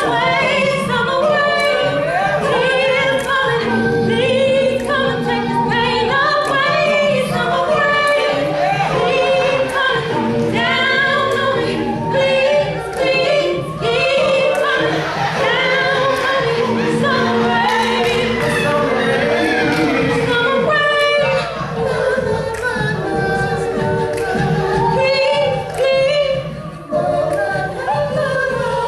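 An a cappella vocal ensemble singing without instruments: held backing harmonies under a moving lead melody.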